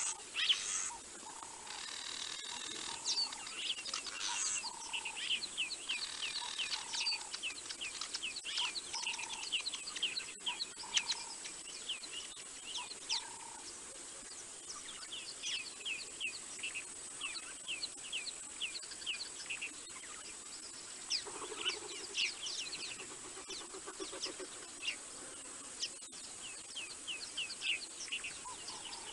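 Several wild birds calling: a constant run of short, quick high chirps, with a lower repeated note through the first half, over a steady high-pitched hum.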